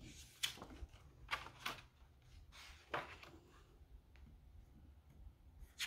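A hardcover picture book being opened and its pages turned by hand: a few quiet, short paper flaps and rustles as the cover and leaves are lifted and laid down.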